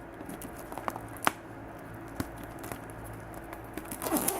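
Hands handling a postcard box and its packaging: scattered light clicks and rustles, with one sharper click about a second in.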